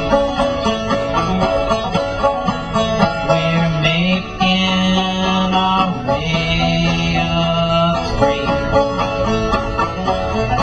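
Background music with many quick notes over long held low notes.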